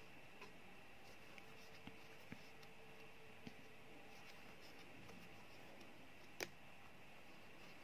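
Near silence with faint clicks and light scratching from a steel crochet hook pulling yarn through single crochet stitches along the edge of a plastic shoe sole; one sharper click near the end.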